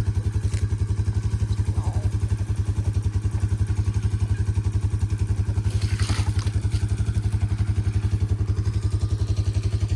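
A small engine running steadily at a fast, even throb, with a brief clatter about six seconds in.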